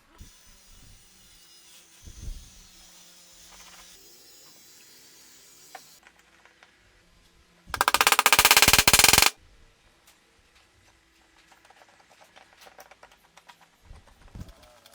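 A power tool working wood, with a loud, very fast rattle of impacts lasting about a second and a half midway. Quieter scraping and handling of wood comes before and after it.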